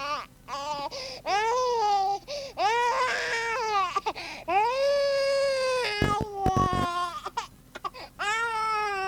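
Recorded sound effect of a baby crying: a run of long wails, each rising and then falling in pitch, broken by short choppy sobs about six seconds in.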